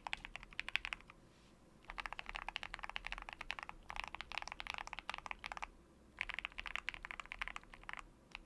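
Typing on a tape-modded KBDfans Tiger80 lite mechanical keyboard with lubed Dangkeebs Lychee Milk tactile switches and PBT Cherry-profile keycaps. Quick keystrokes come in four bursts with short pauses between them.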